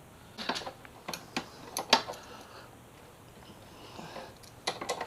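Irregular light clicks and taps of small parts and hand tools being handled while a motorcycle mirror and its mounting are worked on.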